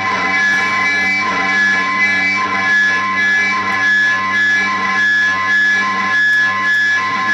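Droning guitar music: several sustained tones held steady and overlapping at a constant loud level, with higher ringing notes fading in and out.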